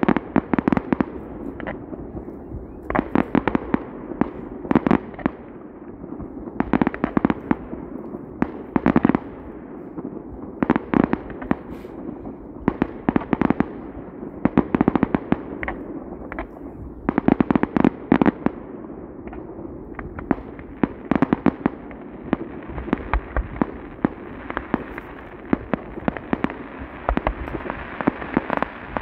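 Fireworks going off in rapid volleys of sharp bangs and pops, a cluster every second or two. In the last several seconds they give way to a dense, steady crackling.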